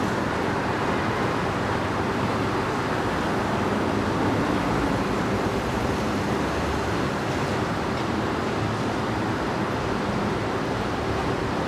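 Busy city road traffic: a steady wash of cars and buses moving past, with a low engine hum underneath.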